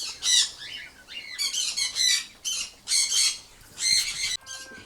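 A brood of incubator-hatched quail chicks peeping shrilly in repeated bursts, one every half second or so.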